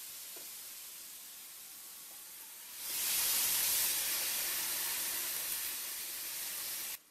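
Marinated chicken breast strips sizzling on the hot ribbed plate of an electric contact grill. About three seconds in the lid is pressed down on them and the sizzling, steamy hiss gets much louder, then cuts off suddenly near the end.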